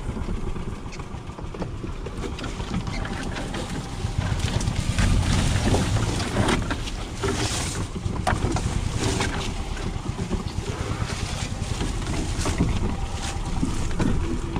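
Golf cart driving along a rough, overgrown trail: a steady low rumble of the ride, with branches and leaves swishing and scraping against the cart, thickest between about five and nine seconds in.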